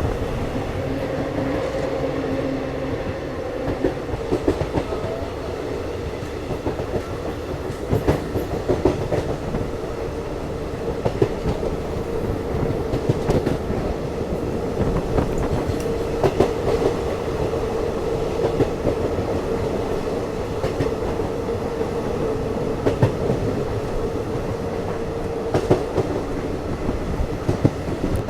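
Passenger train running along the track: a steady rumble and hum, with the wheels clicking irregularly over rail joints.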